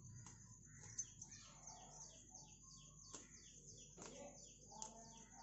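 Faint, quick repeated chirps of a small bird, several a second, with a few soft clicks as tender amaranth stems are pinched off by hand.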